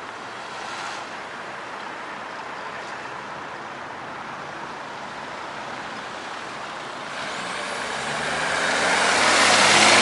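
Steady street traffic hum, then a heavy road vehicle approaching and passing close, its engine and tyre noise growing loud over the last few seconds.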